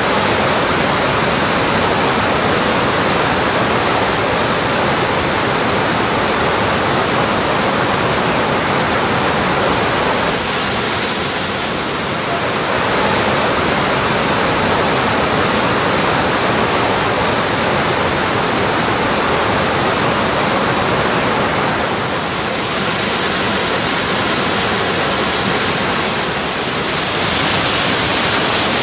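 Rain-swollen waterfall in full spate: a loud, steady rush of falling water, with the hiss brightening for a couple of seconds about ten seconds in and again over the last several seconds.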